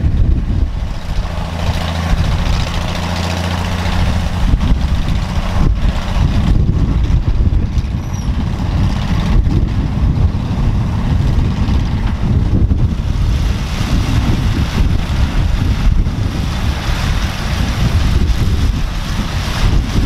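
Combines running in standing corn: the engine and threshing machinery of a 1962 Gleaner A combine harvesting corn, with a second combine close by, in a steady, heavy rumble. Wind buffets the microphone.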